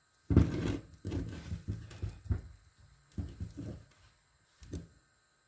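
Hand tools scraping and knocking against a brake slave cylinder housing in irregular bursts, the loudest just after the start, as a stuck part is pried at without heat and does not budge.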